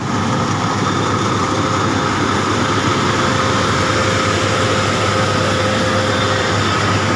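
A rice machine (mesin padi), model WS 8.0, running steadily: a dense mechanical din with a steady whine above it.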